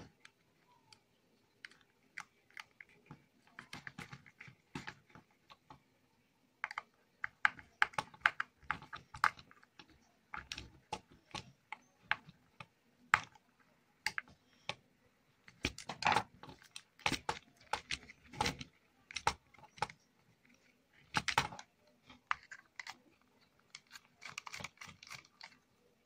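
Irregular clicks and taps of hands working on a plastic switchboard with a screwdriver: metal on terminal screws, wire and plastic, in uneven bursts.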